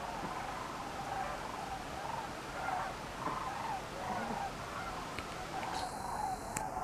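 A large flock of sandhill cranes calling overhead, with many overlapping calls blending into a continuous chorus.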